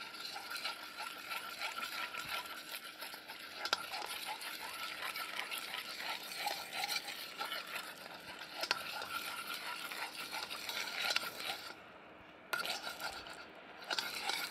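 Metal spoon stirring and scraping around a stainless steel wok as a lemon sauce simmers and is thickened with cornstarch slurry, a busy hiss of many small scrapes and clicks. The stirring goes quiet briefly near the end.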